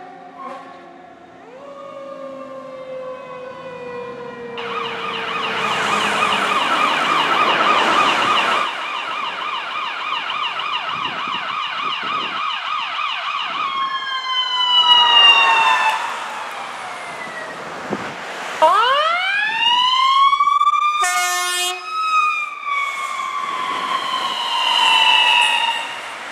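Electronic emergency-vehicle sirens of an ambulance and a police car responding: a long, fast yelp in the middle, with slow rising and falling wails either side. There is a short horn blast about 21 seconds in.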